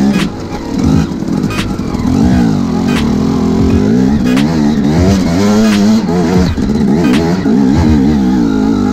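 Two-stroke dirt bike engine revving up and down again and again as the rider works the throttle, with sharp knocks every second or so.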